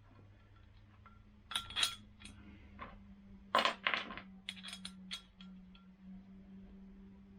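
Small metal aircraft-wire fittings clinking and tapping together as they are handled and fitted: a few sharp clinks about a second and a half in, a louder cluster around the middle, then several light ticks. A steady low hum runs underneath.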